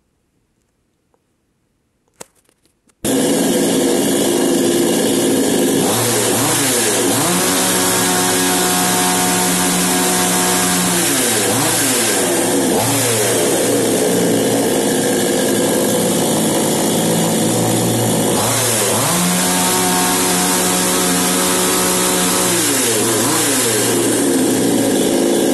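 A two-stroke chainsaw engine running loud and steady, starting abruptly about three seconds in after near silence, its revs dropping and climbing back several times.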